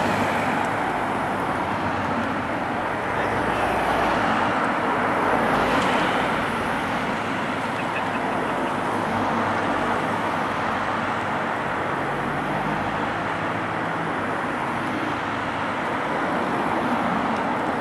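Race convoy of team cars passing one after another, a steady rush of engine and tyre noise that swells as each car goes by.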